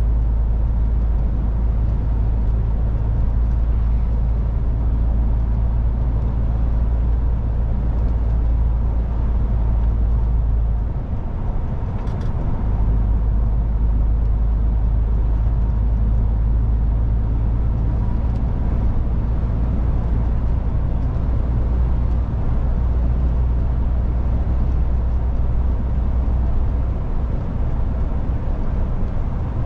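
MAN truck driving at speed: its diesel engine drones steadily with a heavy low road rumble, which eases briefly about eleven seconds in before coming back.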